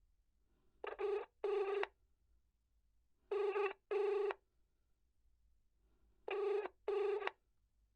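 Telephone ringback tone, the ringing a caller hears while the call goes unanswered: three double rings about three seconds apart, each two short pulses of a steady buzzing tone.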